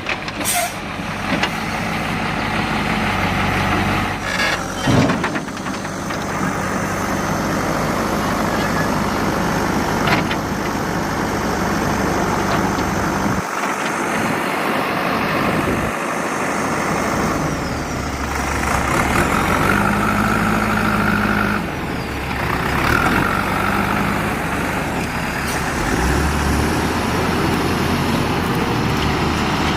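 Heavy diesel engines of a backhoe loader and a tipper truck running, the engine note shifting several times as the machines work.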